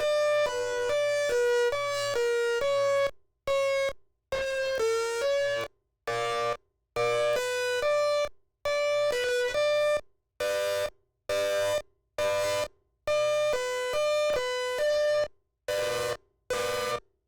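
Electronic siren sounding a buzzy tone that steps back and forth between two or three pitches several times a second. The tone cuts off suddenly again and again, and in the second half it comes in shorter bursts with silent gaps between them.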